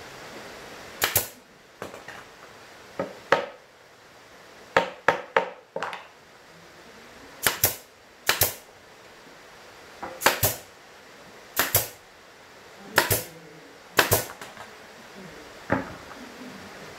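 Pneumatic brad nailer driving brad nails into a plywood speaker cabinet: about a dozen sharp shots at irregular intervals, many heard as a quick double crack, with a fast run of four about a third of the way in.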